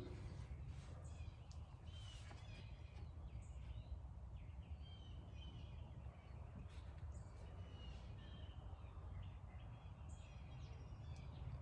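Birds chirping faintly in short scattered calls over a low steady background hum.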